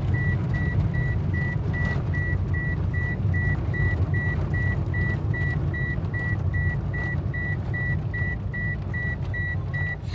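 Car driving, heard from inside the cabin: a steady low rumble of engine and road, with a high electronic warning beep repeating evenly about two and a half times a second.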